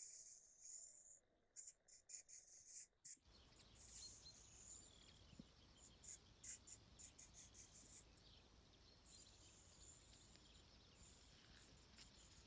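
Near silence with faint, sharp high ticks for the first three seconds, then an abrupt change to a faint steady hiss with scattered high chirps and ticks.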